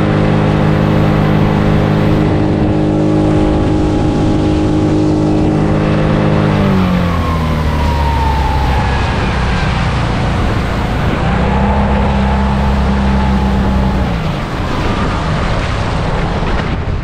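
A motor engine running at a steady speed, then easing off with a falling pitch about six seconds in. It picks up again to a steady, lower note for a few seconds near the middle, then falls away.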